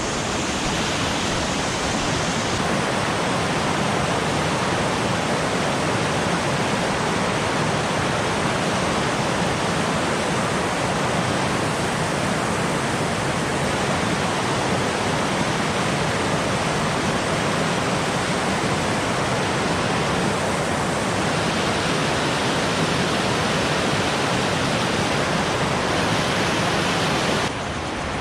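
River water pouring over a low concrete weir, a loud, steady rushing that eases slightly just before the end.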